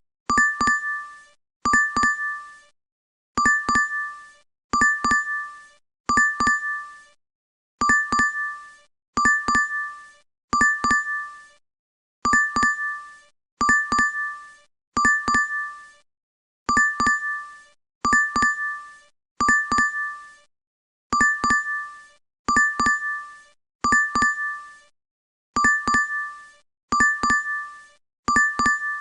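DoorDash app notification chime repeating in a loop about every second and a half, each a quick cluster of bright ding notes that fades away briefly before the next.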